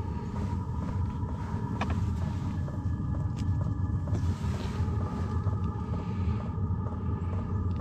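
Diesel air heater running steadily: a low combustion rumble under a steady fan whine, with faint regular ticking.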